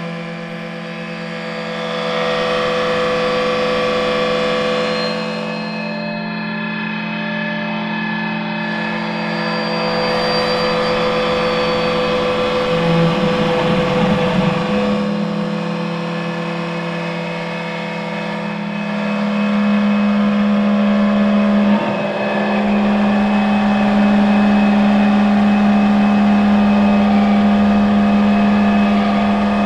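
Prepared electric guitars run through effects, holding a loud, dense drone of many steady tones with a strong low hum at its base. About 13 to 15 seconds in the low tones waver and swell, and from about 20 seconds on the drone grows louder.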